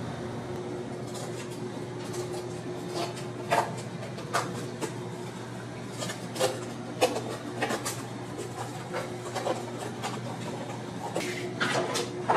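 Scissors cutting through cardboard: a series of short, crisp snips at an irregular pace, over a low steady hum.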